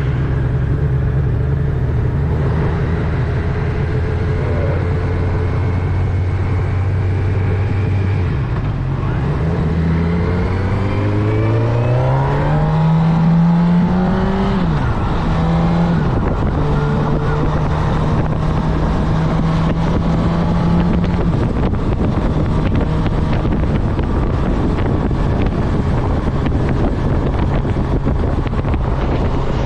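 Honda CB1000R's inline-four engine running while being ridden: steady at first, then the revs climb for several seconds and drop sharply twice in quick succession, as at gear changes, before it settles into steady running with rushing wind over the microphone.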